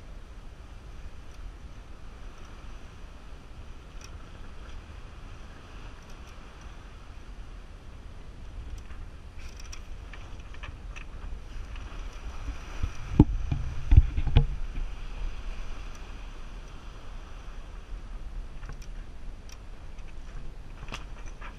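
Water rushing along the hull of a sailing yacht under sail, with wind buffeting the microphone. About two-thirds of the way through comes a short cluster of loud, low thumps.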